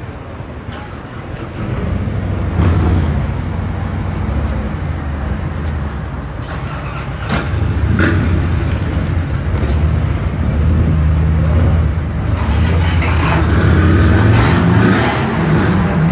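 GM Futurliner's engine idling with a steady low rumble that gets louder about two seconds in, with street noise and a few voices around it.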